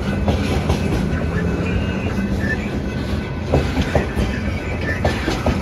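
Freight train boxcars rolling past at a level crossing: a steady low rumble of wheels on rail, with irregular clacks as the wheels pass over rail joints.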